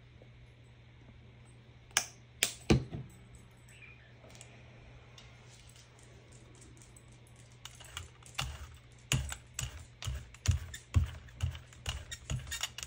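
Light taps and clicks of painting tools working paint onto a surface: a few sharp clicks about two seconds in, then a run of quick taps, about two a second, from about eight seconds in.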